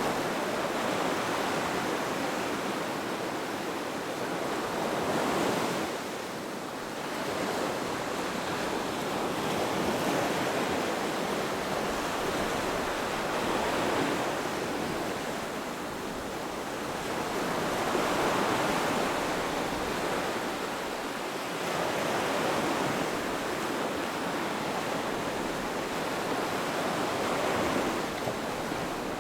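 Ocean surf washing in, a steady hiss of breaking waves that swells and fades every four or five seconds.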